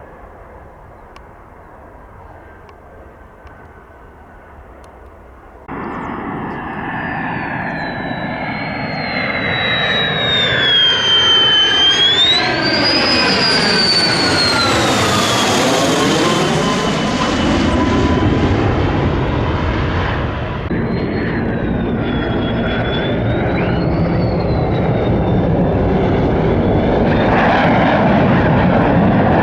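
Lockheed Martin F-35A jet fighter's single F135 turbofan passing low and close: faint distant jet noise, then about six seconds in the sound jumps suddenly to a loud jet noise with a high whine that dips and swoops back up as the aircraft goes by, staying loud to the end.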